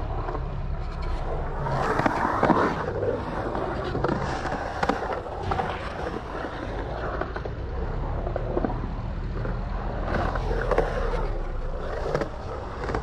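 Skateboard wheels rolling and carving through a concrete bowl: a steady rumble that swells louder about two seconds in and again near the end.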